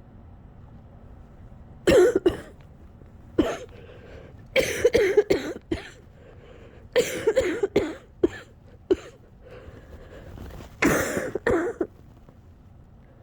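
A person with a cold that has lasted a couple of weeks in a coughing fit: about seven bouts of coughing, several coughs to a bout, starting about two seconds in, with shaky breathing between the coughs.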